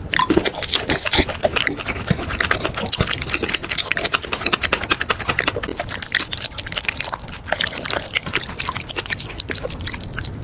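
Dense wet, sticky clicks and squishes close to the microphone, coming thick and fast.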